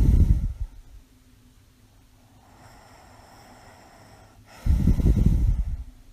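A sleeping woman with mild sleep apnea snoring: two low, fluttering snores about a second each, one at the start and another near the end, with soft breathing between them.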